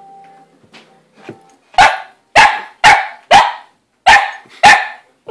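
Small long-haired dog barking six times in quick succession, starting about two seconds in. It is barking at a cat hiding inside a cat-tree play house.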